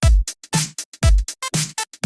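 Electronic music made with a drum machine and sampler: a kick drum that drops in pitch lands about twice a second, with short pitched synth blips and chopped bursts of noise cut in between.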